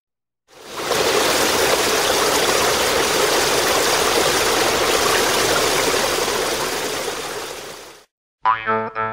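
Creek water rushing over a low rock cascade, a steady rushing noise that fades in about half a second in. It stops abruptly near the end, where plucked guitar music starts.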